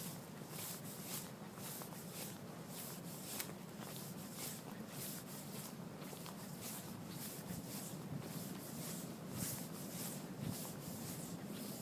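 Footsteps on sand at a steady walking pace, about two a second.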